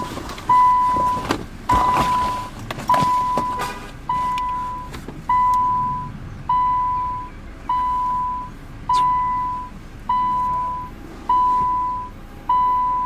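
A car's electronic warning chime, a steady beep that repeats about every 1.2 seconds, eleven times, each one fading out. A few sharp knocks are heard in the first few seconds.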